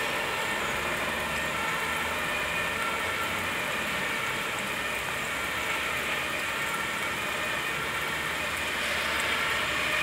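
Steady hum of distant road traffic across a wet town, getting a little louder near the end.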